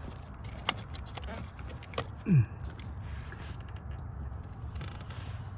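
Spark plug wire boots being pushed onto the plugs of a 2002 Chevy Blazer engine: two sharp clicks a little over a second apart, then a brief downward-gliding squeak, the loudest sound, over a steady low rumble.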